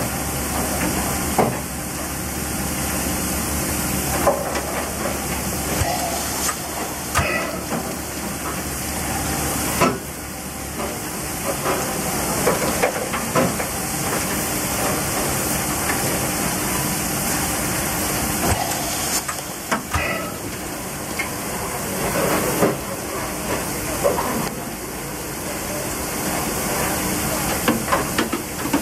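Steady hissing of steam and spraying water at a C62 steam locomotive during fire-bed cleaning, as ash and clinker are dropped from the ash pan and hosed down. Scattered metallic knocks and clanks come through the hiss.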